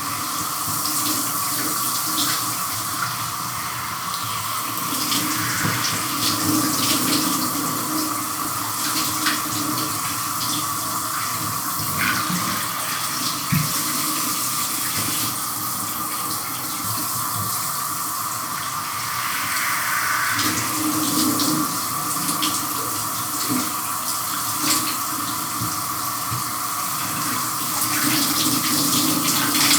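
Shower spray running steadily onto a person and the shower floor. The hiss shifts as the flow is interrupted, with scattered small splashes and knocks.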